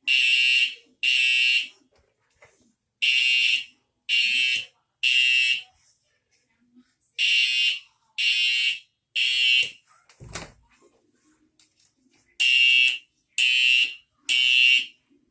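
Fire alarm horn sounding the temporal-three evacuation code: groups of three short, identical blasts with a longer pause between each group. A single sharp knock comes about ten seconds in.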